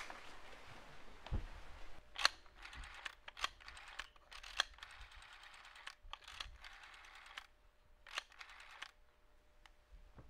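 Rotary telephone being dialed: about five runs of quick clicks, one for each digit as the dial is pulled round and spins back.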